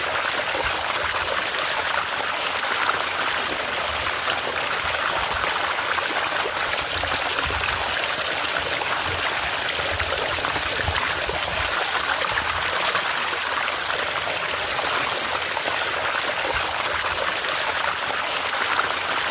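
River water flowing and splashing over small falls, a steady rushing with no letup.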